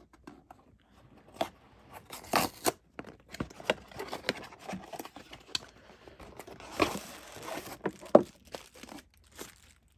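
A shipping box and its packaging being torn open by hand: irregular tearing, crinkling and sharp snaps, loudest about two and a half seconds in and again near eight seconds.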